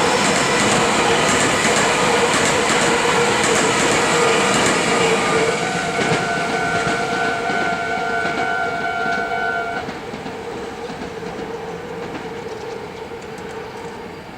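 Meitetsu 3100 series and 2200 series express train passing over a level crossing, wheels clacking over the rail joints, then fading as it moves away. The crossing's warning bell rings steadily and cuts off suddenly about ten seconds in.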